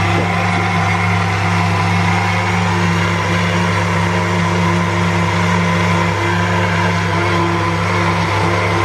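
Techwood countertop jug blender running at a steady speed, its motor humming evenly as it blends a jar of liquid eggnog mixture.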